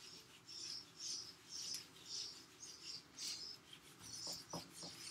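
Whiteboard eraser rubbing dry-erase marker off a whiteboard in repeated short wiping strokes, about two a second.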